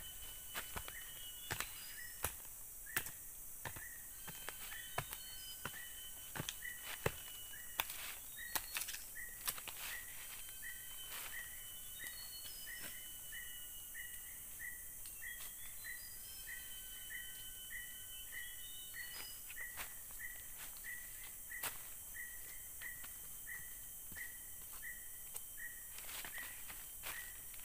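A small hand digging tool chopping into forest soil: a series of sharp knocks, thickest in the first ten seconds or so. Behind it, birds calling, one repeating a short chirp about twice a second, over a steady high hiss.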